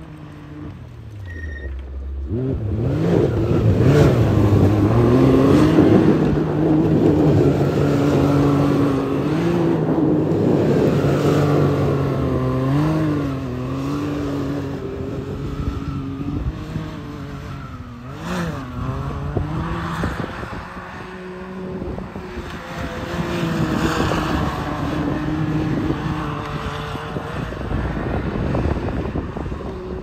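Can-Am Maverick side-by-side's engine revving hard while the machine spins and slides in snow, its pitch swinging up and down with the throttle. It starts lower and builds up about two seconds in.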